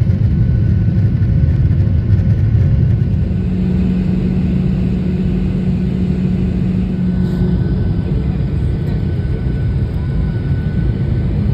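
Jet airliner cabin noise at a window seat: a steady, loud low engine rumble. A steady hum joins in for a few seconds partway through.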